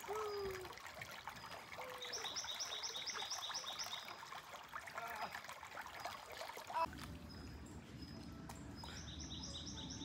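Mountain stream trickling and rushing over rocks, while a bird repeats a high chirping note in quick runs of about four notes a second, once about two seconds in and again near the end. A single knock sounds about seven seconds in, and from then on the low rush of water is louder.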